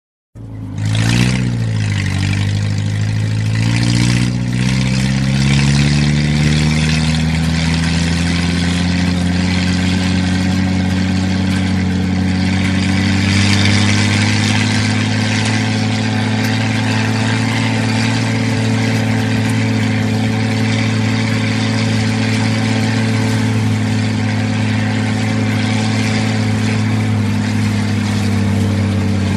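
Old Jeep's engine running as it drives. The engine note climbs over the first several seconds as it picks up speed, then holds steady.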